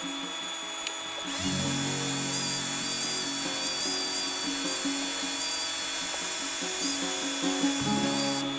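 Power sander running, starting about a second in and stopping near the end, with a wavering high whine, over background music.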